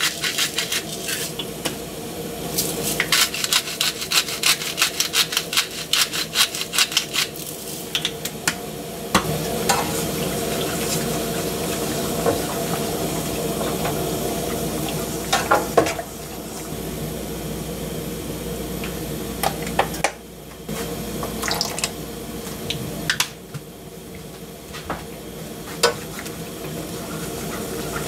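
Cooking utensils working in a pot or bowl: a long run of quick clicks and scrapes, then steadier stirring and scraping with scattered knocks.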